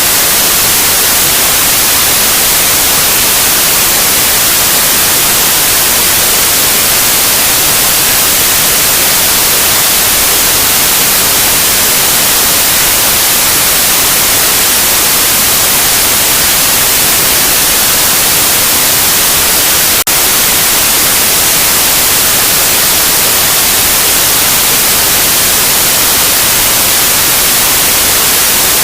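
Loud, steady white noise: an even, unbroken hiss, brightest in the treble. There is a single brief click about two-thirds of the way through.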